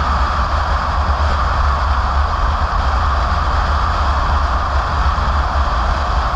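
Steady road and engine noise of a car driving, heard from inside the cabin: a constant low rumble under an even rushing noise.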